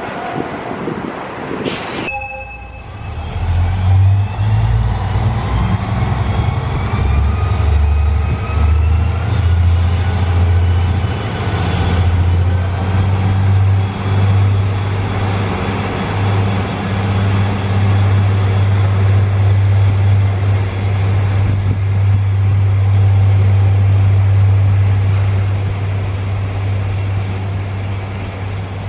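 A DD55 diesel locomotive's engine running hard as it hauls a train of tank wagons: a deep steady drone, with a thin whine climbing in pitch over the first ten seconds or so. The sound fades a little near the end as the train draws away.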